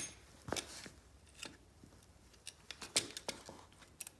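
Scattered metallic clicks and clinks from a large steel MB-750 foothold trap as its springs are pressed down underfoot to set it.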